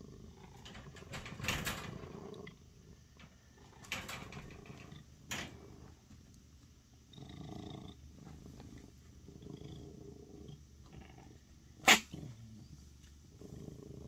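Domestic cat purring, a low rumble that comes and goes, broken by a few short sharp bursts, the loudest a brief one about twelve seconds in.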